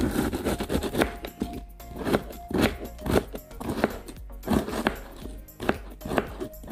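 Kitchen knife cutting broccoli florets, the blade knocking down onto the surface beneath in irregular strokes about twice a second, over background music.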